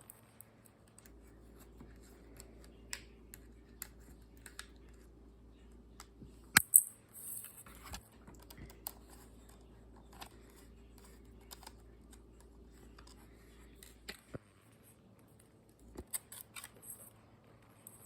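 Scattered small sharp clicks and handling noise, with a loud double click about six and a half seconds in, over a faint steady low hum that stops near the end.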